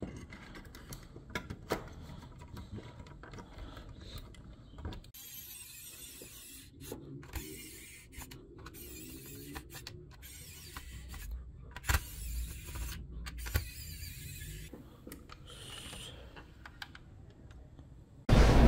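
Small clicks, knocks and rubbing of a scale model car's parts being handled and fitted together, with a small precision screwdriver driving the screws that hold the body to the chassis. Two louder knocks come past the middle, and a much louder sound cuts in suddenly at the very end.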